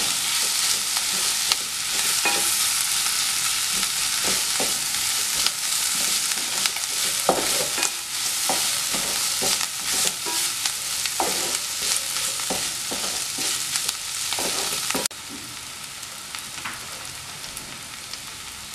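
Onion, tomato and capsicum masala sizzling in oil in a non-stick kadai, with a wooden spatula stirring and scraping against the pan in irregular knocks. About 15 seconds in, the sound suddenly drops quieter and the stirring stops, leaving a fainter sizzle.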